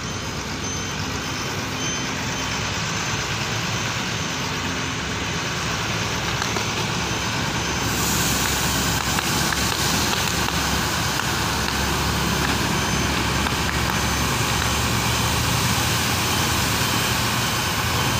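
A lorry fully ablaze, burning as a steady dense rushing noise with a low rumble underneath and scattered crackles, thickest about halfway through.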